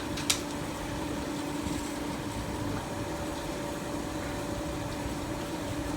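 Automatic metal-cutting band saw machine running with a steady hum, one sharp click just after the start.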